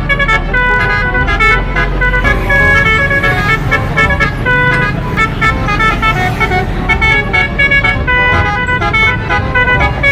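Multi-tone 'telolet' air horn on a bus playing a melody of short stepped notes, with an engine's low rumble underneath.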